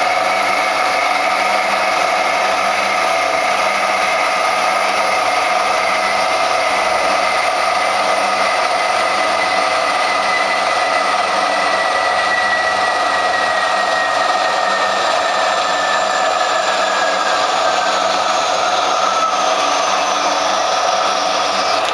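Small metal-cutting bandsaw running steadily as its blade cuts through metal stock. A high whine within the sound slowly falls in pitch through the second half. The motor cuts off suddenly at the very end as the lowered saw frame trips the limit switch, its automatic shut-off at the end of the cut.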